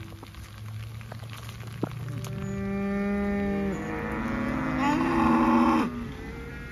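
Cattle mooing: two long moos one after the other, starting a couple of seconds in. The second is louder and rises in pitch, and a fainter call trails after it near the end.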